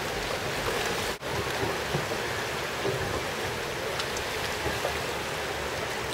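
Steady seaside noise of small Baltic Sea waves washing, an even hiss with no distinct events, broken by a brief dropout about a second in.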